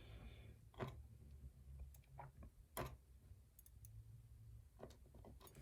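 A few faint, scattered clicks of small metal lock parts, pins and core pieces being handled and set down, with near silence between them.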